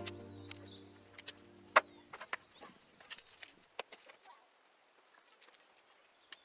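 Background music with held notes that stops about two seconds in. Scattered sharp clicks and knocks come through it and after it, thinning out in the second half.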